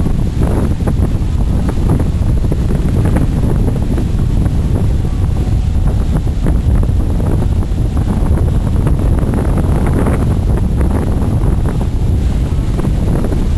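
Wind buffeting the microphone, heard as a loud, steady low rumble.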